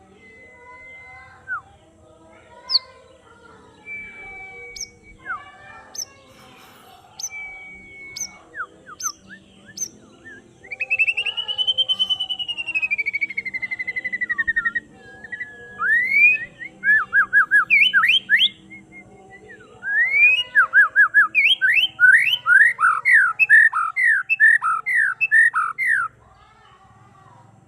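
White-rumped shama singing: scattered clear whistles and short notes, then a long whistle that rises and falls, then rapid runs of loud sweeping notes that stop shortly before the end.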